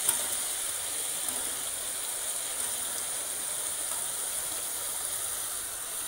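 Steady sizzling hiss of green beans and onion-tomato masala frying in oil in a kadhai as diced raw potatoes are tipped in by hand, with a light knock at the start.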